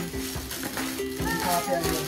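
Music playing, with a melody moving in short steady notes over a regular beat; a short high-pitched voice comes in over it about a second in.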